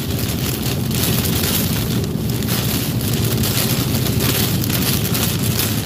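Rain hitting a moving car, with steady road noise from the tyres on wet pavement, heard from inside the cabin.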